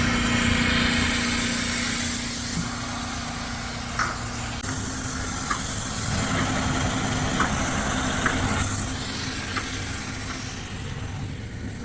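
Small engine-driven dewatering pump running steadily, with a hiss of spraying water that fades near the end and a few light knocks.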